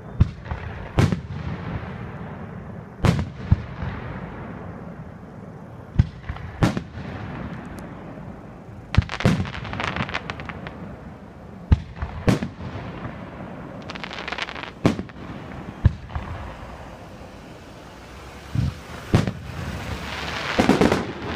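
Aerial fireworks shells bursting one after another, a sharp boom every second or two with a few quick doubles, and crackling after some of the bursts.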